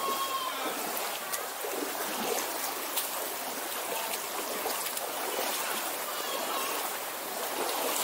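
Stream water flowing with a steady rush, and a short call from a voice at the very start.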